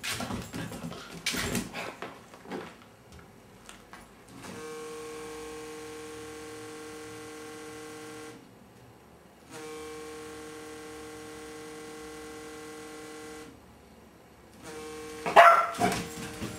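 Labrador puppy barking a few times, then a vibrating cellphone buzzing in three long pulses of about four seconds each with short gaps. Another loud bark comes near the end, over the buzzing.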